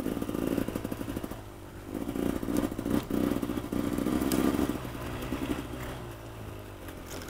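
Enduro motorcycle engine running at low, uneven revs on a forest trail, with the clatter of the bike over rough ground and an occasional knock.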